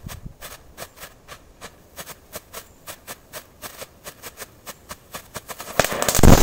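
Small crackling firework burning on a tree stump, giving off sharp, irregular pops a few times a second. Near the end it flares into a loud, dense rush of crackling.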